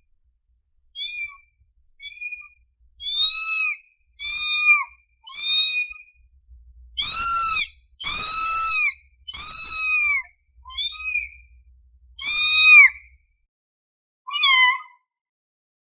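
Kitten meowing about eleven times in short, high-pitched calls that rise and fall in pitch. The calls are loudest around the middle. These are a hungry kitten's calls for its mother.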